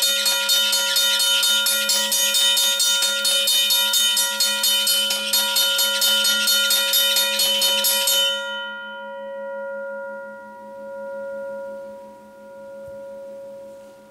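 Motor-driven mechanical railway crossing bell: the striker hammers the gong in a rapid, even ring. About eight seconds in the striking stops, and the gong rings on alone, slowly fading with a wavering tone.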